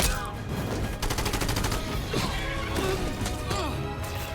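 Cartoon soundtrack: music mixed with a rapid rattle of hits and several sliding whistle-like glides.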